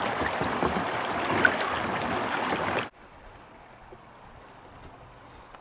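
Shallow river rapids rushing over stones, a steady loud wash of water that cuts off abruptly about three seconds in. After the cut only a faint, steady hush remains.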